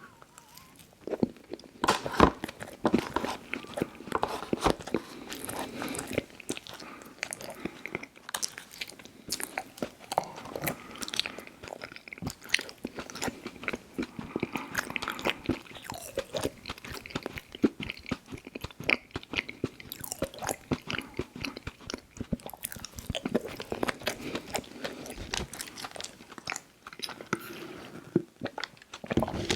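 Close-miked mouth sounds of a person biting and chewing frosted snack cakes: a dense run of small clicks and crackles with brief pauses.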